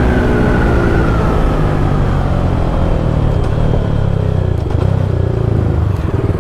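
Single-cylinder sport motorcycles with Akrapovic exhausts running on the road. The engine note falls in pitch over the first two seconds, then settles into a steady low exhaust note.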